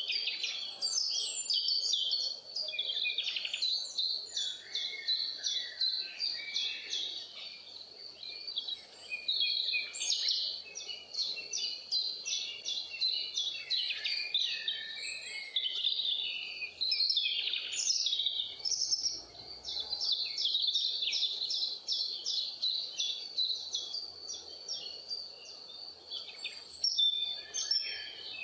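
A dense chorus of birds chirping and calling, over a continuous high trill that pulses rapidly and evenly.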